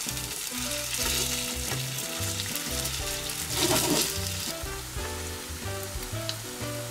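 Chicken-and-tofu nuggets sizzling as they shallow-fry in a little oil in a nonstick frying pan, with a louder swell of sizzling a little past the middle.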